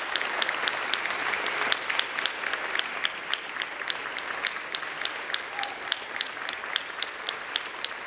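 Audience applauding, with a few sharp, evenly spaced claps close by standing out above the crowd, slowly dying down.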